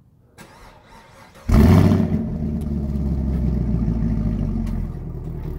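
Cold start of a 2016 Chevrolet Camaro SS V8 with its exhaust in normal mode: the starter cranks briefly, then the engine fires with a loud flare about a second and a half in and settles to a steady fast idle from the quad exhaust, easing down a little near the end.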